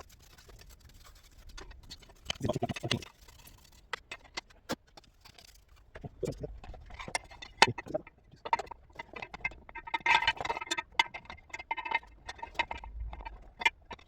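Plastic chop-saw handle and housing parts being fitted back together by hand: scattered clicks, knocks and scraping. A louder knock comes about two and a half seconds in, and a dense run of clattering follows near the end.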